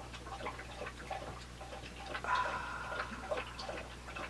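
Springer spaniel lapping water from a bowl: a run of quick, wet clicks.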